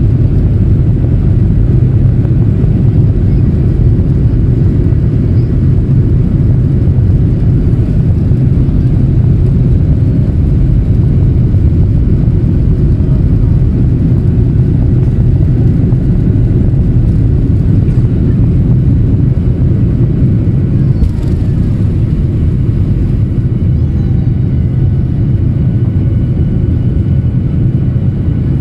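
Ryanair Boeing 737 on its takeoff roll and climb-out, heard from inside the cabin: its jet engines at takeoff thrust make a loud, steady, deep rumble. The rumble eases a little about three-quarters of the way through.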